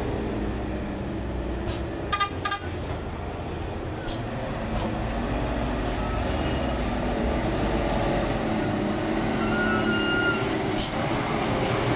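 Hino truck's diesel engine running as the truck comes down a steep descent, growing louder as it approaches. A few sharp clicks or knocks sound over it, a cluster a couple of seconds in and one more near the end.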